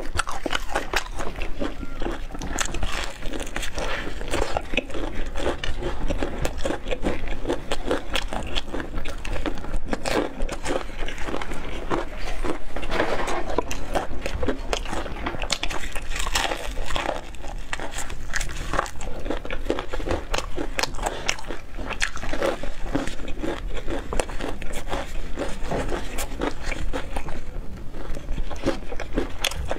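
Close-miked biting and chewing of crispy breaded fried chicken, a continuous run of crunches and crackles.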